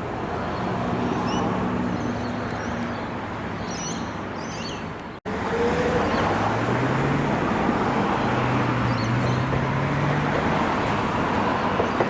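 Melbourne suburban electric train pulling out of the station: a steady hum at first, then, after a brief cut about five seconds in, louder running noise with its motor tones rising in pitch as it accelerates away.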